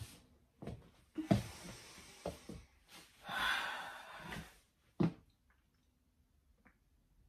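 A person moving about and settling onto a bed, with a few soft thumps and rustles. There is a long, heavy exhale about three seconds in and a last thump about five seconds in.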